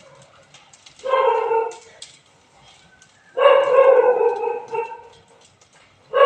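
A dog gives long, drawn-out cries: one about a second in, a longer one in the middle that sags slightly in pitch, and another starting at the very end. Between them, burning straw crackles lightly.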